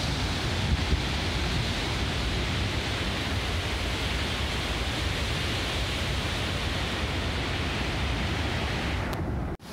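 Steady rushing of floodwater, an unbroken noisy roar with a deep low rumble.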